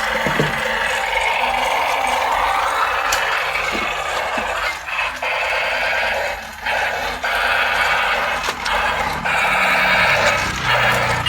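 Battery-powered toy playing electronic sound effects, with a brief drop around the middle and again near the end.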